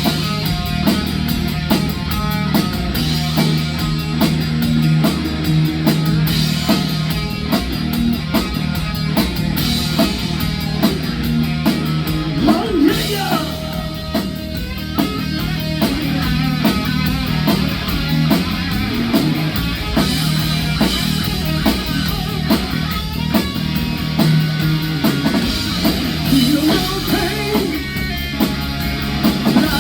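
Rock band playing live, with electric guitar and a drum kit keeping a steady beat.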